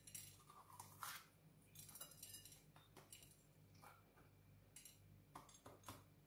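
Faint crackles and small clicks of fingers pulling the core and seeds out of a green bell pepper, a few scattered handling sounds over a low steady hum.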